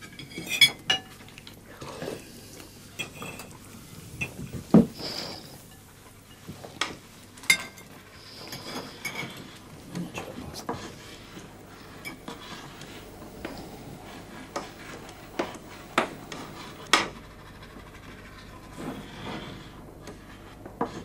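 Forks and knives clinking and scraping on plates: irregular sharp clinks with a few louder knocks. Near the end the clinking gives way to a soft scratching of a pastel stick on canvas.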